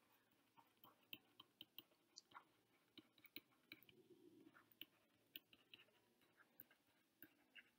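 Near silence broken by faint, irregular small clicks and taps, a few a second, of a stylus tapping a tablet screen while handwriting.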